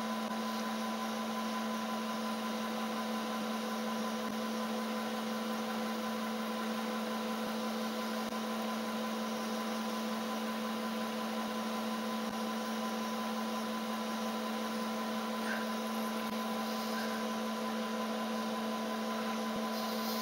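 Milling machine spindle running steadily with a constant hum while a 5 mm carbide endmill feeds down into a sheared bolt in the cylinder head.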